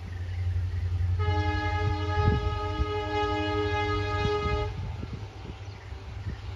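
Locomotive horn of a passing passenger express, one long steady blast of about three and a half seconds, sounding over a continuous low rumble.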